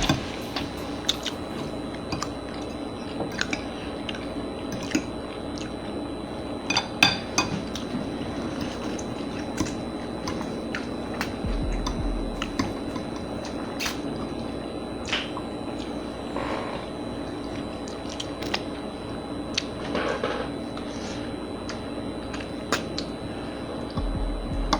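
People chewing and smacking on a spaghetti-and-meatballs meal, with scattered sharp clicks of cutlery against a plate.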